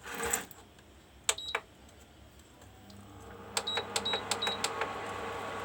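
Induction cooktop being switched on for a test after repair. Its touch buttons are pressed with sharp clicks and short high beeps, a few in quick succession about three and a half seconds in. Its cooling fan and coil then start up, humming steadily from about halfway through.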